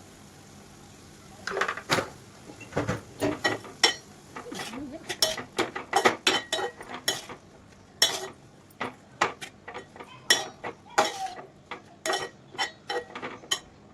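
A metal utensil scraping and clinking against a cooking pan as food is stirred, in quick, irregular strokes starting about a second and a half in.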